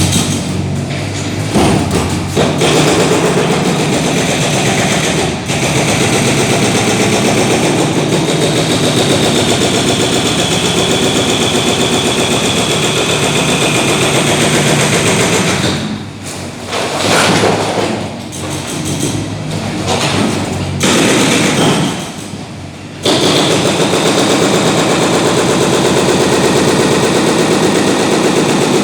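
Demolition breaker hammering concrete in a fast, continuous run of blows, stopping briefly a few times about two-thirds of the way in before starting again.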